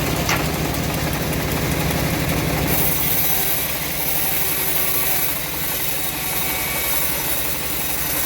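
Homemade engine-driven bandsaw running. About three seconds in the sound changes: the low engine hum eases and a steady high hiss sets in, as of the blade sawing through teak.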